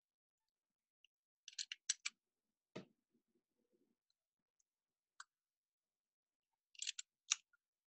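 Sparse small metal clicks from latch needles and a hand tool on a circular sock-knitting machine's needle cylinder, as needles are set back into their slots and stitches pulled across: a quick run of clicks about a second and a half in, a duller knock near three seconds, one lone click, and another run of clicks near the end.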